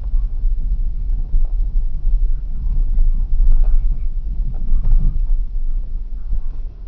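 Vehicle driving, heard from inside the cabin: a steady low rumble of engine and road noise, with scattered light knocks and rattles.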